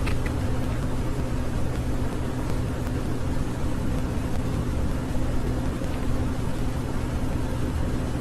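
Steady low mechanical hum with a hiss behind it, unchanging throughout.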